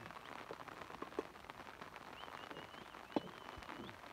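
Light rain falling steadily, an even hiss with many small drop ticks. A thin, wavering high tone sounds in the second half, and there is one sharp click about three seconds in.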